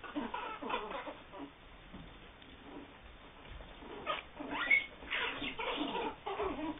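Small pet animal making short squeaky calls in irregular bursts, busier in the second half, with one brief high whistle-like note about two-thirds of the way through.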